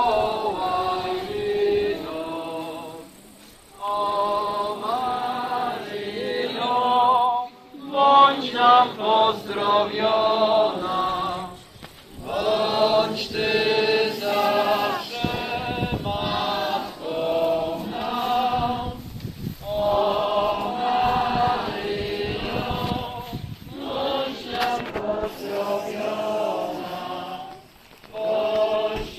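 A congregation singing a hymn together during Mass, many voices in unison, in phrases broken by short pauses every few seconds.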